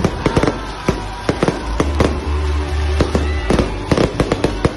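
Aerial fireworks exploding overhead in rapid, irregular bangs and crackles, over a steady low rumble.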